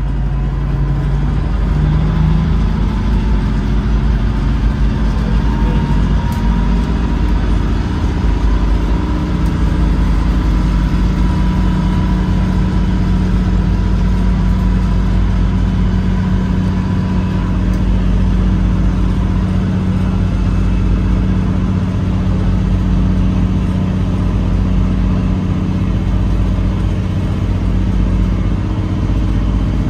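Boat engine running steadily at cruising speed, a loud, even low hum, with water rushing and splashing along the hull.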